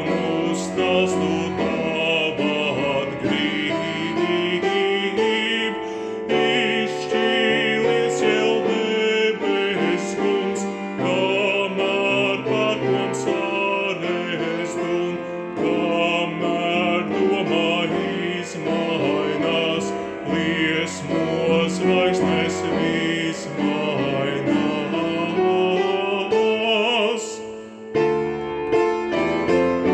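A man singing a slow song with vibrato to piano accompaniment. The voice drops out near the end, leaving the piano playing alone.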